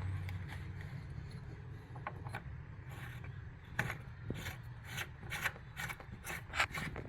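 Hand-tool work on a sink faucet's hot-water valve stem: repeated short, irregular metal scraping and rasping strokes, coming thicker from about three and a half seconds in.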